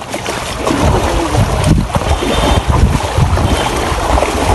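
Wind buffeting the microphone: a loud, uneven low rumble, with faint voices in the background.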